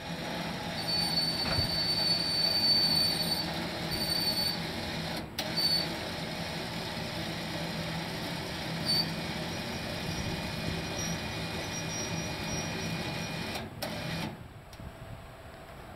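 Steady rumbling of a vehicle on the move, with a high squeal that comes and goes in the first few seconds.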